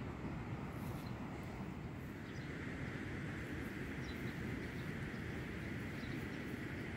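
Steady rushing noise of river water pouring through weir sluices, heard from a distance, with a low rumble and a few faint high chirps.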